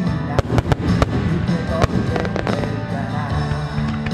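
Aerial firework shells bursting in a rapid series of sharp bangs, about seven in the first two and a half seconds, over loud music.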